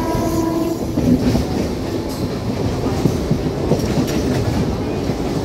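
Mumbai suburban electric local train running at speed, heard from inside the open-doored coach: a steady rumble of wheels on rail with irregular clacks over the rail joints. A short whine sounds in the first second.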